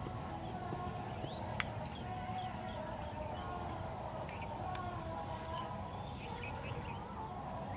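Rural outdoor ambience: scattered short bird chirps over a steady high insect drone, with a low steady rumble underneath. Two faint sharp clicks, about a second and a half in and about five seconds in.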